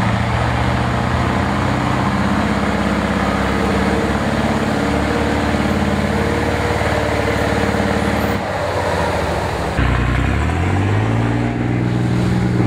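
Large off-road truck's diesel engine pulling hard under load as it climbs out of a muddy water hole. About eight seconds in the engine note drops away, then rises again as it revs up over the last few seconds.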